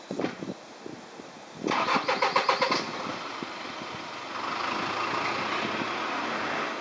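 An engine starting: about a second of rapid cranking, then it catches and runs steadily, louder from about halfway.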